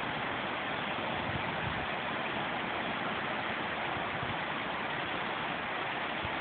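Steady, even rushing noise, with no gunshots or other distinct events.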